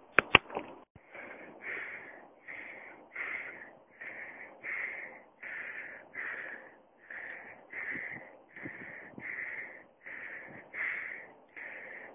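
A man panting hard and fast, out of breath from climbing a steep hill under a heavy pack of paragliding gear, each breath in and out a separate puff, about two a second. Two sharp clicks come right at the start.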